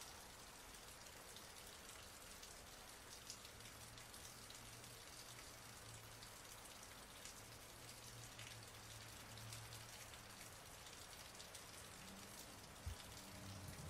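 Rain falling steadily: a soft, even hiss of many drops with scattered small ticks, and one dull thump near the end.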